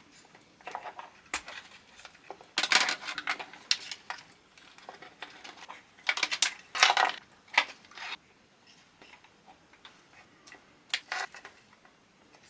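Small hard parts clinking and rattling as they are handled and rummaged through, in irregular bunches of sharp clicks with pauses between, while adapters are sought for an XT60 battery plug.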